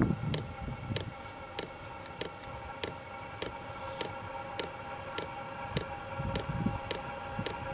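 Diesel air heater starting up: its fuel dosing pump ticks evenly, a little under twice a second, over the steady whine of the heater's combustion-air blower.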